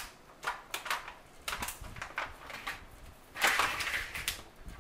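Crinkling of a plastic flour package being handled: short separate rustles, then a longer, louder stretch of crinkling near the end.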